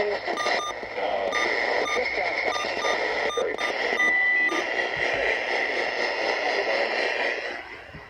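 Radio static and hiss from a noisy emergency-alert broadcast, with a steady tone running through it and brief dropouts; it fades down near the end.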